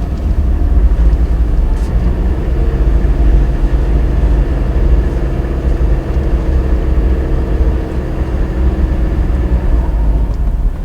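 Suzuki Jimny JB64 heard from inside the cabin: a steady low engine and drivetrain rumble with a constant buzzing vibration noise from the transfer lever, an unexplained abnormal noise that will not stop.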